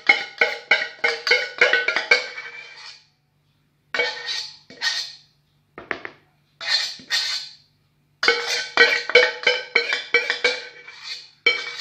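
A metal spoon striking and scraping the inside of a small stainless steel saucepan, ringing strikes about three to four a second in runs with short pauses, as the last of the dissolved gelatin is knocked out of the pan.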